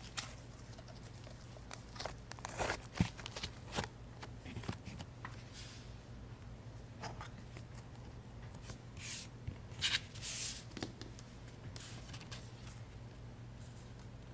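Hands stretching and pulling a soft, fluffy white slime, giving scattered quiet crackles and small tearing sounds. Later the hands pick up the plastic slime tub and a paper card, with a few brief rustles around the middle.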